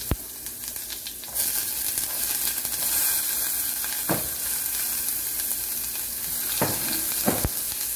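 Chopped onion and garlic sizzling in hot oil in a small saucepan as a spatula stirs them, with a few sharp knocks against the pan. The sizzle grows louder about a second in.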